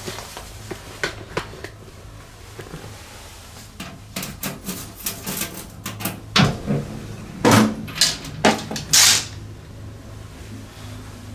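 Water sloshing and splashing with a run of knocks and clatters as a hand reaches into a full bathtub to pull the drain plug. The loudest splashes come in a cluster of about five just past the middle.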